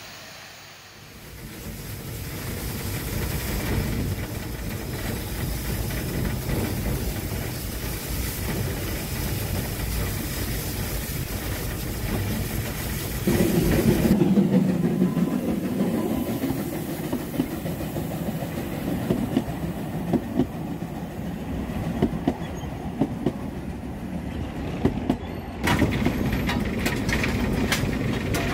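Narrow-gauge steam train running, with steady running noise and wheels clattering over the rails. About halfway through the sound cuts to a louder, lower rumble, and near the end comes a run of sharp clicks.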